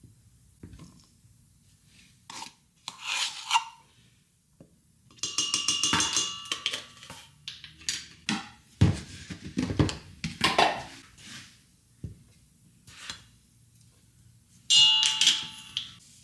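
A plastic measuring cup and measuring spoon knocking and scraping against a stainless steel mixing bowl as flour and salt go in, in several separate bursts. Two of the knocks leave the bowl ringing briefly.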